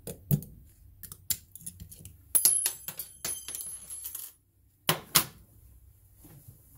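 Snap-ring pliers working a snap ring out of a flywheel impact wrench's steel shaft: a run of small metal clicks and clinks, with a ringing metallic clink about two and a half seconds in. Two sharp clicks follow about five seconds in.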